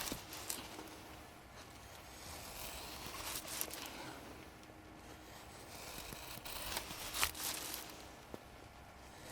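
A knife blade shaving thin curls off a wooden stick to make a feather stick: a few long scraping strokes with light clicks between them.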